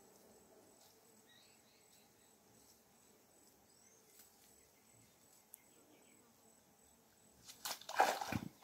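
Quiet outdoor ambience: a steady high-pitched insect trill with a few faint chirps. About seven and a half seconds in, a loud, sudden burst of noisy sound lasting about a second.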